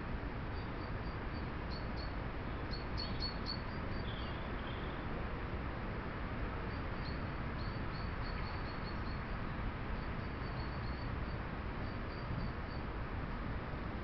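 Faint, high, thin bird calls in short runs of chirps, over a steady hiss and low rumble.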